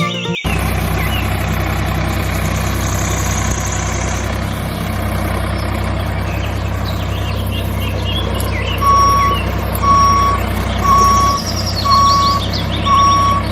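A vehicle engine idling steadily, and from about two-thirds of the way through a reversing alarm beeping five times, about once a second. Birds chirp faintly.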